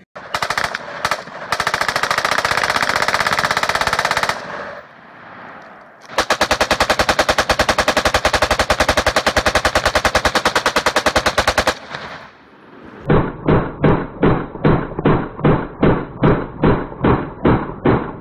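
Rifle fire in three strings: a dense rapid run lasting about four seconds, a long even rapid string of about five and a half seconds, then separate shots at about three a second near the end. The later strings come from an M4 carbine fed by a 150-round magazine.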